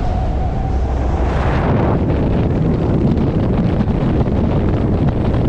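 Wind buffeting the camera microphone on the open bow of a fast ferry under way, a loud, gusty rumble from the boat's speed. A thin steady whine fades out in the first half second, and a brighter rush swells about a second and a half in before the low buffeting takes over.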